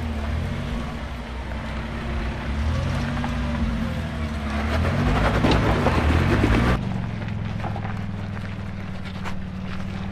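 Jeep CJ engine working over rocks at low speed, its pitch rising and falling with the throttle and growing louder as it passes close, with tyre and gravel crunch. About two-thirds of the way through it cuts off abruptly to the steadier, even low hum of another 4x4's engine creeping along the trail.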